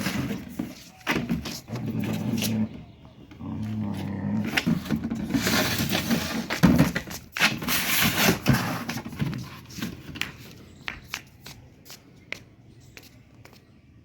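German Shepherd growling in play while gnawing a toy. Later comes a run of sharp clicks and cracks as the toy is chewed, thinning out near the end.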